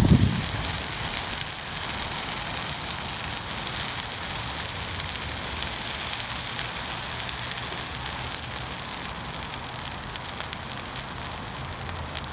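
Water poured from a plastic bottle onto a burning heap of matches sizzles steadily as it turns to steam, with small crackles throughout, easing slightly toward the end. There is a low thump right at the start.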